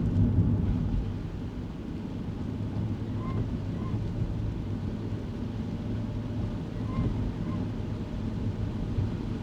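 Kei car cabin noise while driving on a wet road: steady low engine and tyre rumble. A faint pair of short high squeaks comes back about every three and a half seconds.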